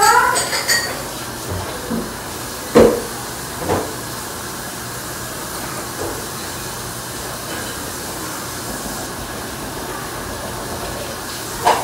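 Room tone: a steady hiss, broken by two dull knocks about three seconds in and another knock near the end.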